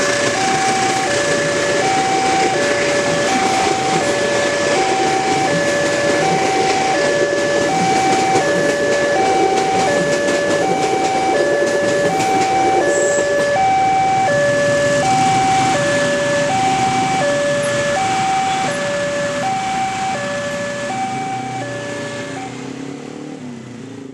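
Indonesian railway level-crossing alarm sounding an electronic two-tone chime, alternating high and low at about one pair a second, over the rumble of the end of a passing train and idling motorcycle engines. The alarm stops about two seconds before the end as the motorcycle traffic pulls away.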